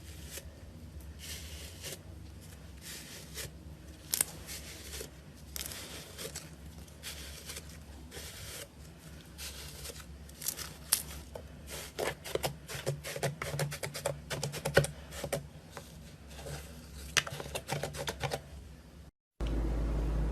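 Slime being squeezed and worked by hand, giving off scattered crackling and popping clicks that come in quick clusters in the second half. Near the end it cuts off abruptly and a steady low hum takes over.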